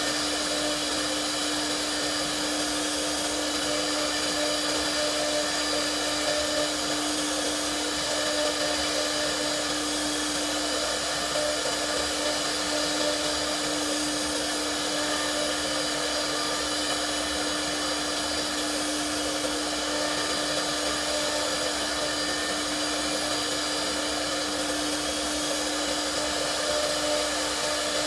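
CNC router spindle running steadily, a constant whine over a broad airy rush that does not change.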